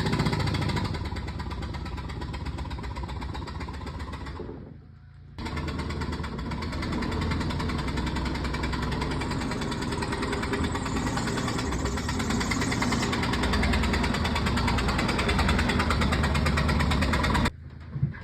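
1995 Mitsubishi Mirage's four-cylinder engine running rough. It drops away briefly about five seconds in and cuts off shortly before the end. It doesn't sound good, and the owner traces this to spark plug wires that were off.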